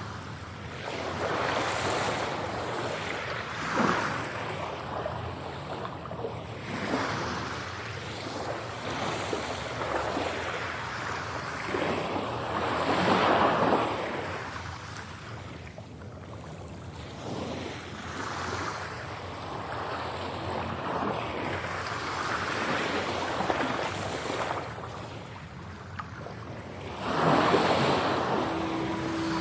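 Ocean waves surging and washing, swelling and fading every few seconds.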